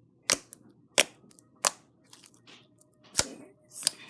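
Slime being squeezed and pressed by hand for ASMR, giving sharp popping clicks as trapped air bursts, about five pops spaced roughly two-thirds of a second apart.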